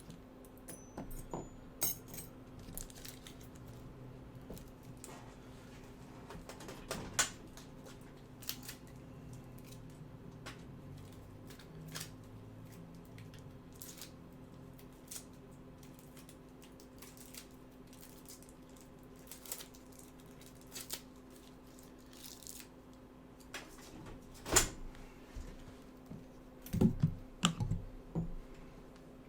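Small tools and parts being picked up, moved and set down on a workbench: scattered light clicks and clatters, with a few louder knocks near the end, over a steady low hum.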